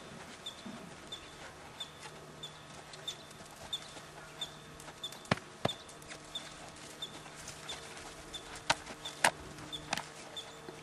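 A small bird chirping, one short high chirp repeated at a steady pace about every two-thirds of a second. A few sharp clicks stand out over it, twice about five seconds in and three times near the end.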